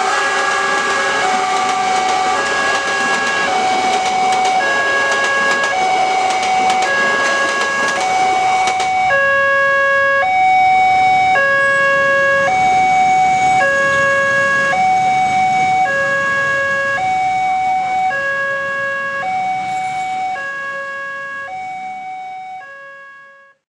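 Railroad level-crossing warning alarm sounding an electronic two-tone chime, a high note and a low note alternating about once a second. Under it for the first nine seconds or so is the running noise of a passenger train's coaches passing. The alarm keeps sounding after the train has gone and fades out near the end.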